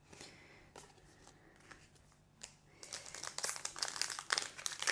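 Foil wrapper of a Pokémon TCG booster pack crinkling and tearing as it is handled and opened. It is faint for the first few seconds, then becomes a dense crackle from about three seconds in.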